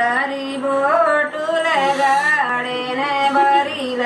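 Women singing a traditional song in long held notes that glide smoothly from pitch to pitch, with no instruments.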